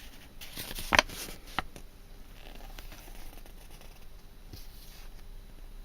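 Small parts being handled and set down on a table: two light clicks about a second in and again shortly after, then faint rustling.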